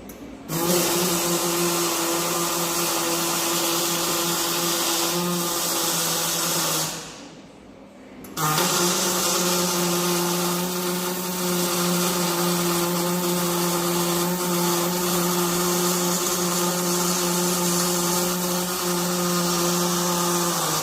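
An electric power tool running at a steady speed in two long runs. It starts about half a second in, stops for a moment about seven seconds in, then starts again.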